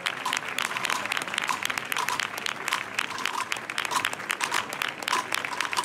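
Crowd applauding: dense, steady clapping that keeps up without a break.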